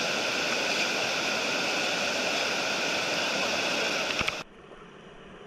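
Whitewater slide on the Beaver River, running high at about 400 cfs, giving a loud, steady rush of falling water. It cuts off abruptly about four seconds in, and a much quieter water sound takes over.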